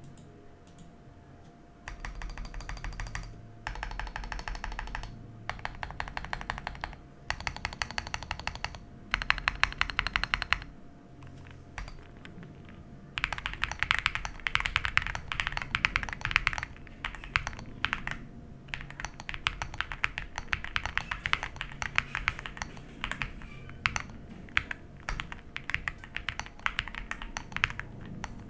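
Typing on an Owlab Spring mechanical keyboard with stock Aflion Carrot tactile switches on an aluminium plate: fast keystrokes in five short bursts with brief pauses between, then steady continuous typing from about halfway through.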